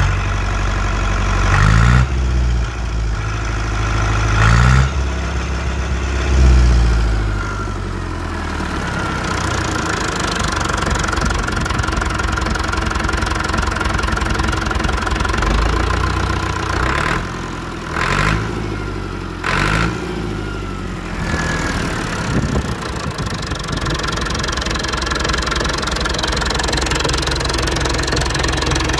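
Perkins 4.236 four-cylinder diesel engine running on test. Its revs rise and fall a few times in the first several seconds, then it settles to a steady idle.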